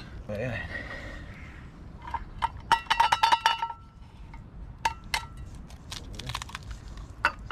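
Metal mess-tin pan clinking and ringing against a camp stove: a quick run of sharp clinks a couple of seconds in, then a few more taps about five seconds in as an egg is knocked on the pan's rim and cracked into it.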